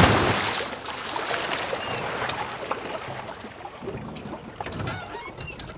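Swimming-pool water washing and lapping around a tiny car that has just gone into the pool, settling after the splash: a rush that fades during the first second, then gentle sloshing with small drips and gurgles.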